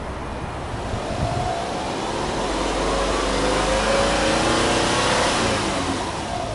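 Subaru Impreza hatchback 1.5i-S's 1.5-litre flat-four (boxer) engine revved slowly in neutral and let back down, its exhaust note rising in pitch and loudness to a peak about four seconds in, then falling.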